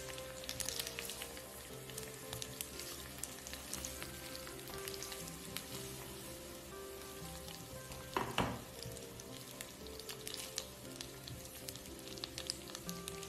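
Spaghetti and shrimp sizzling in a hot pan while being tossed with tongs, a steady crackle of small pops, with one louder knock about two-thirds of the way through.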